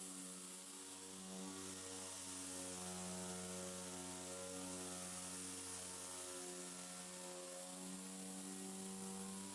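Quiet background music of sustained, overlapping held notes that change pitch every second or two, over a faint steady hiss.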